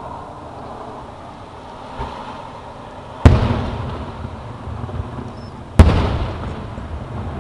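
Aerial firework shells bursting: two loud booms about two and a half seconds apart, each followed by a fading echo, with a softer thump about two seconds in.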